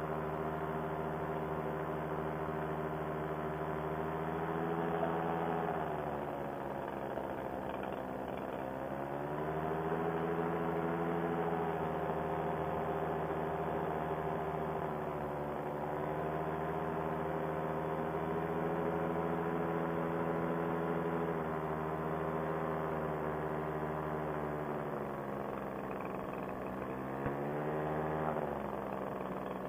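Fresh Breeze Monster paramotor's two-stroke engine and propeller running in flight. The engine note sags and climbs back twice. The engine is running poorly after a carburetor jet change, for a cause the pilot cannot find.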